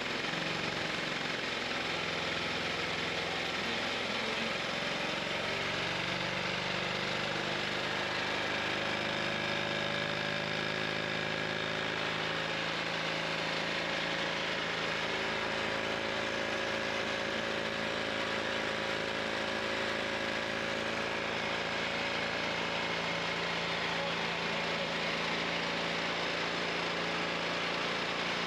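Engine fitted with a Thunderstorm plasmoid generator running steadily, with a slight shift in its pitch a few seconds in.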